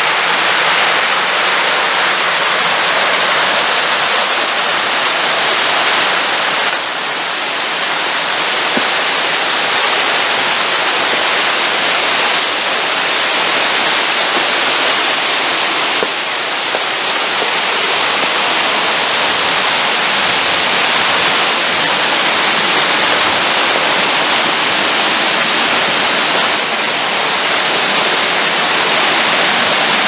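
Water of a waterfall cascading over sandstone rocks: a loud, steady rush.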